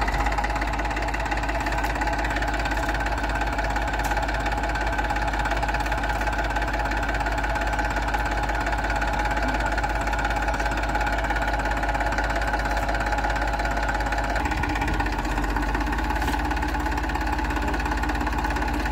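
Eicher 380 tractor's diesel engine running steadily at low revs, its note shifting about three quarters of the way through.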